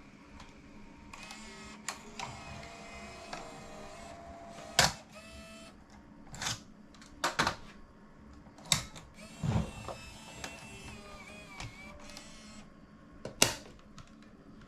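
Sharp ViewCam Hi8 camcorder being operated: sharp clicks of its buttons and tape mechanism, with two stretches of motor whine from the tape transport.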